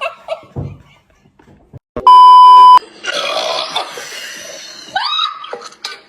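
A loud electronic beep, one steady tone lasting under a second, about two seconds in. It is followed by a rough, raspy burp of about two seconds, brought up by gulping carbonated Sprite.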